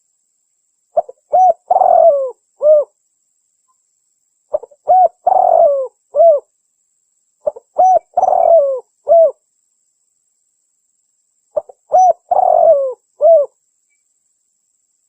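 Spotted dove (tekukur) cooing, played as a lure call. Four repeated phrases, each of a few short coos and a longer falling coo, come about every three to four seconds with silence between them.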